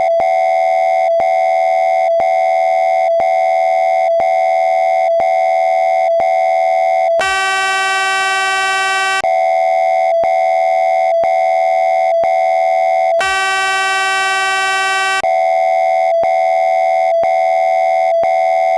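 Synthesized emergency alert system attention tone: a loud steady electronic tone broken by short clicks about once a second. About seven and again about thirteen seconds in, it switches for roughly two seconds to a harsher, buzzier tone before returning. It is the attention signal that opens a test broadcast of a new emergency alert system.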